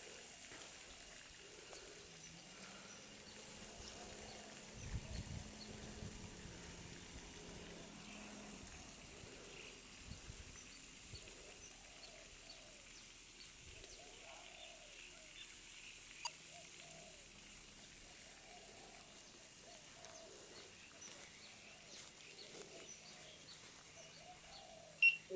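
Faint bird calls, short and repeated, over quiet outdoor background noise. A faint low hum comes and goes in the background.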